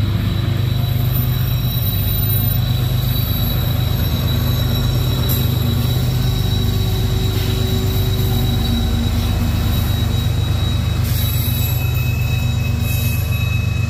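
Mid-train distributed-power diesel locomotives of a CSX manifest freight passing at close range: a steady heavy diesel engine rumble with wheels rolling on the rails. A thin, steady high-pitched whine runs over it, and a second high tone comes in near the end.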